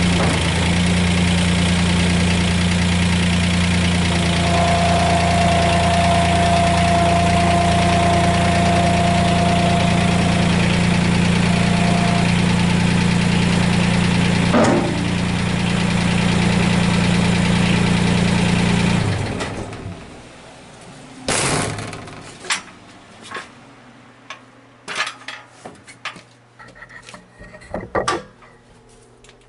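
Komatsu WA10 compact wheel loader's engine idling steadily, then switched off about two-thirds of the way through and dying away within a second. After that come light scattered clinks and knocks.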